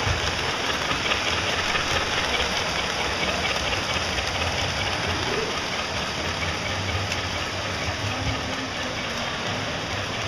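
Model trains running on a large layout, a steady rushing rumble, with people talking in the background.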